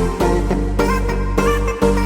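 Electronic background music with a steady beat and pitched melody lines.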